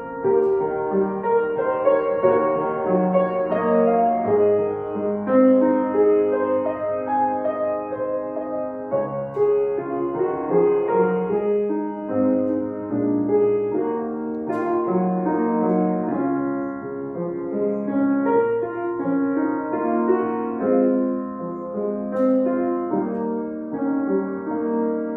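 Grand piano playing a slow solo piece, a melody over held chords.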